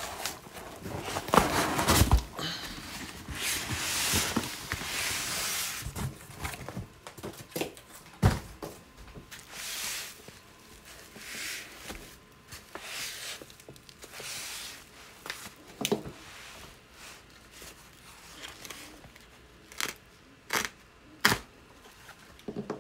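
Cardboard packing being torn and crumpled by hand in stretches of rustling, with several sharp knocks as the packing and the cocobolo wood is handled on the desk.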